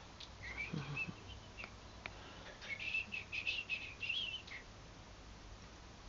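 Domestic canary giving a few short chirps, then a quick run of twittering chirps for about two seconds.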